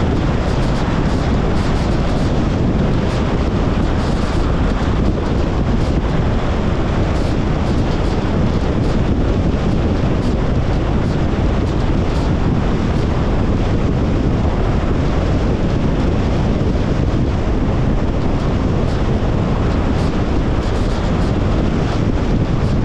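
Steady road and wind noise from a Tesla Model Y Long Range on the move: a constant rush of tyres and air, heaviest in the low range, with no engine sound from the electric car.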